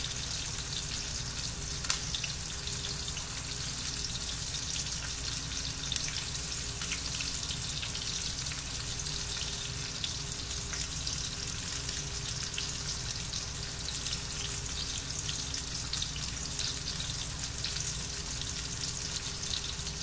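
Fish pieces frying in oil in a stainless steel pan on a gas stove: a steady sizzle with scattered small crackles, over a steady low rumble.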